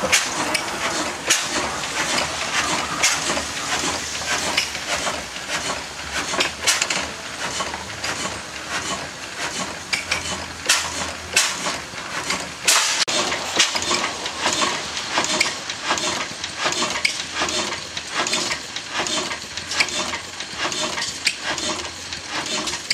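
1908 Hornsby-Akroyd 12 hp single-cylinder hot-bulb oil engine running, a steady metallic clatter of sharp clicks and knocks from its valve gear and moving parts.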